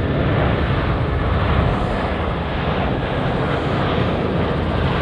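Airplane engines running, a loud, steady noise with a heavy low rumble and no clear pitch.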